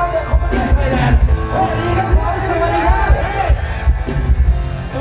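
Loud music with a heavy, pulsing bass beat and a singing voice, played through a large stage PA sound system under test.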